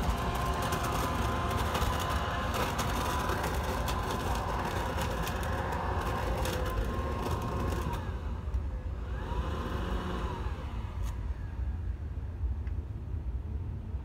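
Ryobi leaf vacuum running with a steady whine, leaves clicking and rattling through it. About eight seconds in the whine dips in pitch and climbs back, then the machine winds down and goes quieter about eleven seconds in.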